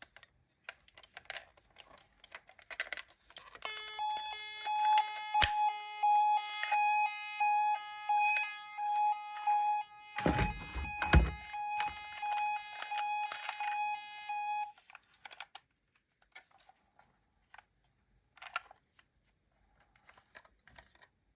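Electronic siren of a toy miniature ambulance sounding a steady high tone for about ten seconds, starting about four seconds in, over the clicking and clatter of the small plastic car. About ten seconds in there is a heavy low thump and rumble, and after the siren stops only scattered clicks remain.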